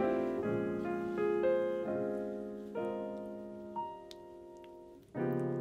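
Background piano music: a slow run of notes and chords that fades away about five seconds in, then a new chord starts.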